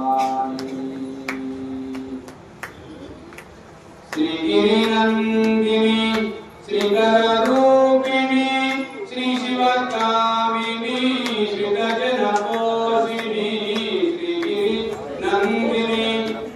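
Devotional chanting sung in long held notes that rise and fall slowly, coming in strongly about four seconds in after a quieter stretch. A steady run of sharp clicks sounds along with it.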